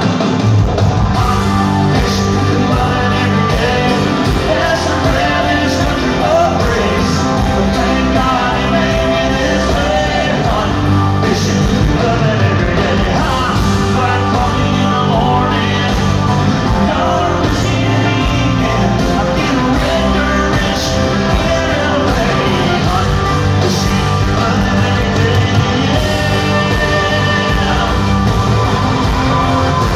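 Live rock band and singer performing in an arena, heard from the stands with a steady beat, bass and sung vocals.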